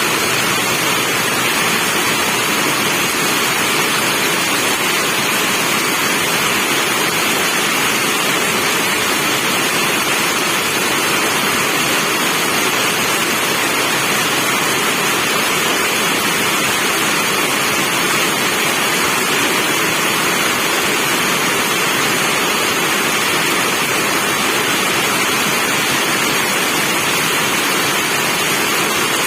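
Steady rain falling, an even hiss that holds constant with no let-up and no distinct drops or thunder.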